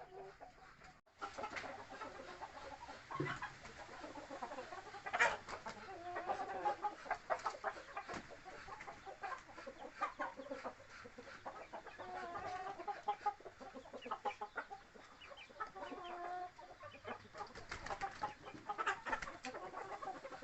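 Bangkok gamecocks clucking in short repeated calls, mixed with many short sharp clicks and knocks. The sound cuts out briefly about a second in.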